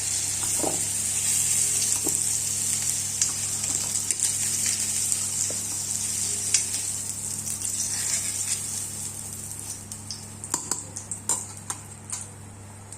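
Par-boiled potatoes sizzling in hot oil in a kadai as a spatula stirs and lifts them out. The sizzle fades about ten seconds in, leaving a few sharp clicks of the spatula against the pan.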